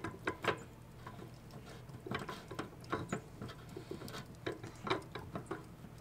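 Socket ratchet clicking in several short runs as a 15/16-inch socket turns out the nylon drain plug of an Atwood RV water heater.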